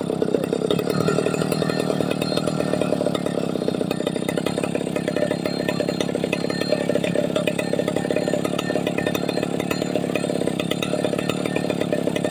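Two-stroke chainsaw running steadily at high revs.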